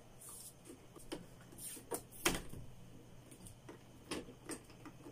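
Black vinyl electrical tape being pulled off the roll and worked around twisted wire splices in a junction box: a run of short crackles and clicks, the loudest a little over two seconds in.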